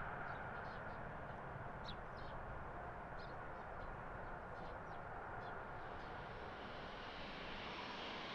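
Jet airliner climbing away after takeoff, heard as a faint, steady distant engine rumble, with birds chirping now and then. About six seconds in, a louder, higher jet-engine hiss comes up and keeps rising.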